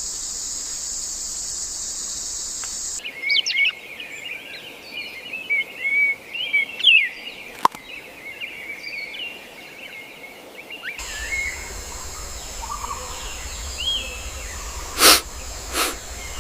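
Wild nature ambience in three spliced segments: a steady high-pitched insect chorus, then many short, quick bird chirps, then a quieter steady background with two short loud noises about a second apart near the end.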